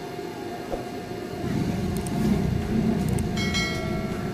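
Low rumble of passing road traffic that swells about a second and a half in, with a short high tone about three and a half seconds in.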